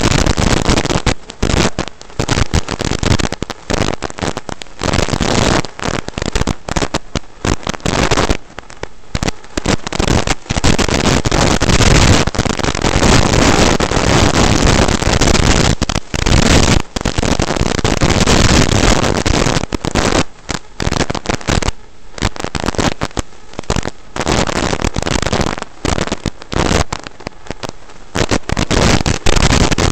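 Hissing, crackling static from an analog FPV video receiver's audio channel, with no steady motor tone, chopping in and out in rapid irregular dropouts.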